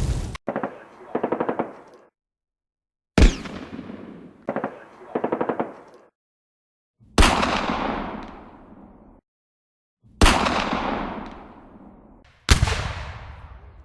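A sequence of separate gunfire sound effects, cut one after another. There are two pairs of short, rapid machine-gun bursts, and four single heavy shots or blasts, each with a long echoing decay.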